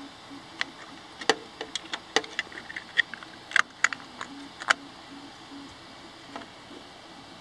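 Irregular light clicks and taps of 3D-printed plastic leg parts being handled and worked by hand, stopping about two-thirds of the way in.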